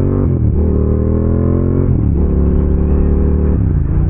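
Motorcycle engine accelerating on the road. Its pitch climbs and drops back at each upshift, about half a second in, about two seconds in and near the end, over a steady wind rush.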